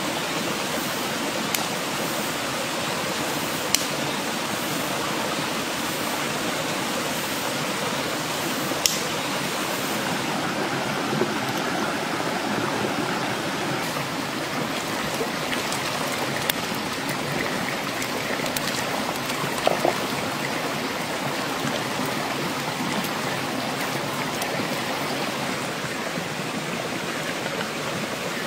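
Steady rushing of a shallow rocky stream, with a few single sharp clicks scattered through.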